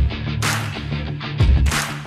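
Background music with a steady drum beat: heavy kick-drum thumps and bright cymbal or snare hits over held bass notes.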